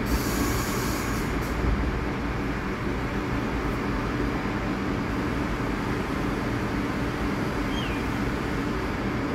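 R62A subway train standing at the station, giving off a steady hum with a low rumble beneath it. A short hiss comes at the very start.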